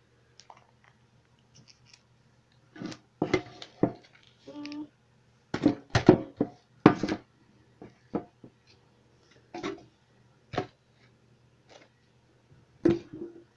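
Plastic sleeve pages of a trading-card binder crinkling and snapping as they are turned and handled: a string of short, sharp, irregular crackles, the loudest around the middle.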